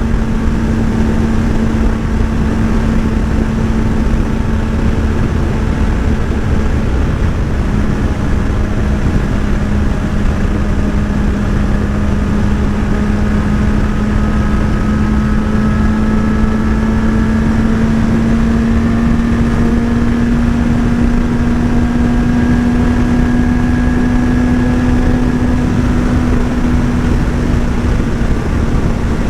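Motorcycle engine running steadily at an almost constant speed while riding, its pitch creeping slowly up and easing back near the end, under a heavy low rumble of wind noise.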